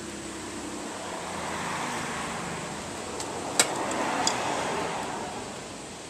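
A passing road vehicle swells up and fades away. Just past the middle come a few sharp clicks, the loudest first, from a small pick prying at the brittle plastic release tab of an ignition coil connector.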